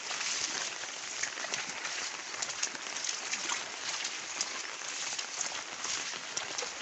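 Water splashing and sloshing as someone wades through shallow floodwater, a steady crackle of many small irregular splashes.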